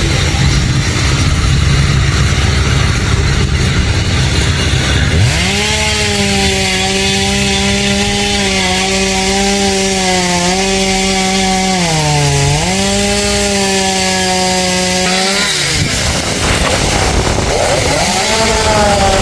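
Chainsaw cutting into tamarind wood. For the first five seconds it runs lower and rougher. It then holds a high steady whine that sags briefly under load about twelve seconds in and drops away a few seconds later, before revving up again near the end.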